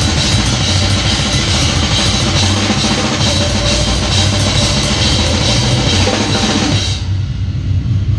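Live extreme-metal band heard from right at the drum kit: dense, heavy drumming of kick drum, snare and a constant wash of crashing cymbals over low distorted bass. About seven seconds in the drums and cymbals stop, leaving only a low sustained drone.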